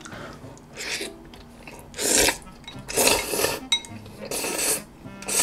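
Chewy jjolmyeon noodles slurped from the bowl in about five separate noisy slurps, each under a second.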